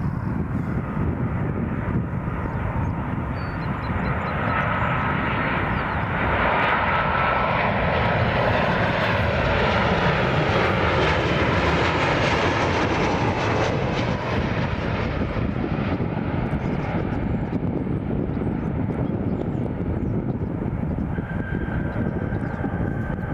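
Boeing 737 airliner's jet engines on landing approach: the engine noise and whine build up, are loudest a little before halfway as the jet passes close, then ease off with the whine dropping slightly in pitch. A new steady whine joins near the end as the jet flares over the runway.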